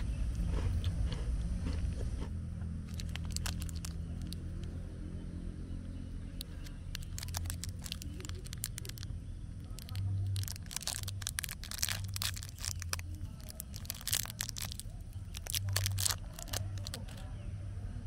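Plastic chocolate-bar wrapper crinkling and tearing open, in clusters of sharp crackles, over a steady low hum.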